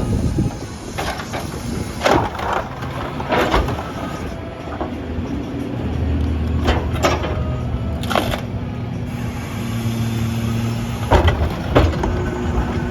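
Garbage truck running, a CNG Mack LR with a McNeilus rear-loader body. Its engine note grows heavier about halfway through, and sharp metallic clanks and bangs come several times throughout.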